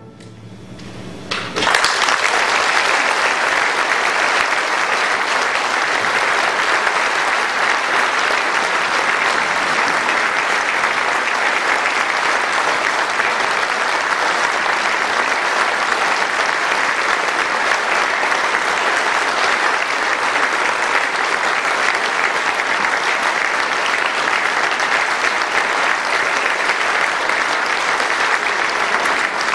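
Concert audience applauding steadily, breaking out about two seconds in as the wind band's final chord dies away.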